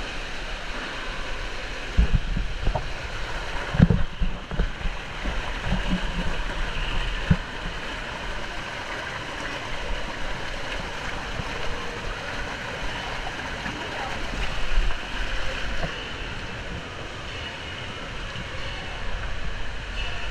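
Indoor water-park din: a steady rush of running water with echoing crowd voices in the background, broken by a few dull thumps in the first several seconds.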